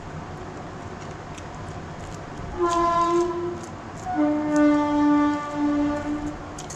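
A horn sounding at a steady pitch: a short blast about two and a half seconds in, then a longer, lower blast of about two seconds that swells and dips a few times.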